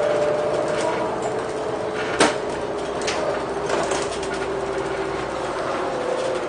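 Renault Agora L city bus running, its drivetrain whine holding steady and easing slightly lower, with a sharp knock about two seconds in and a few light rattles.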